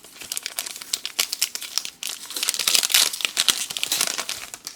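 A Donruss Optic trading card pack wrapper crinkling and tearing as it is opened by hand, a dense run of sharp crackles with a brief pause about halfway through.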